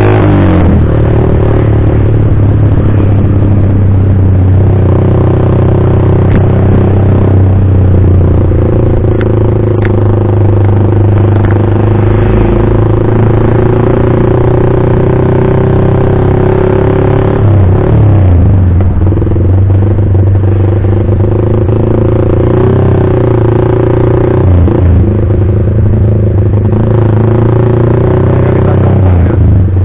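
Yamaha Vixion R's 155 cc single-cylinder engine breathing through a Pro Liner TR1 full-system racing exhaust, running loud and steady under way at low speed. Its pitch dips and comes back up a few times in the second half as the throttle is eased and reopened.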